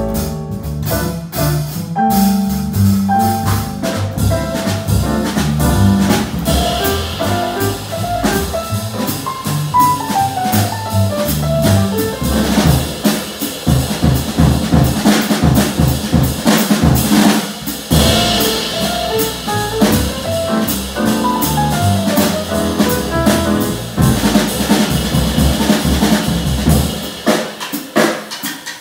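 Jazz trio music led by the drum kit, with snare, cymbals and bass drum to the fore while the piano mostly sits out, and melodic lines coming in and out over it.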